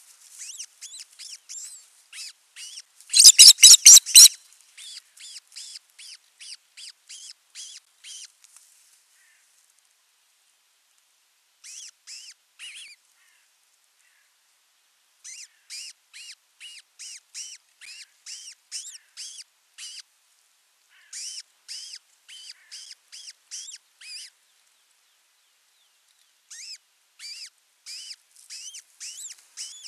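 Osprey calling: rapid series of short, high chirps, about three a second, in bouts separated by pauses. The loudest burst comes about three seconds in.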